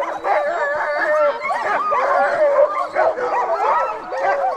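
A pack of sled dogs howling, yipping and whining all at once, with many wavering calls overlapping.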